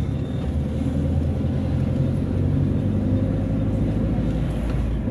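A car's engine and tyres heard from inside the cabin while driving: a steady low rumble.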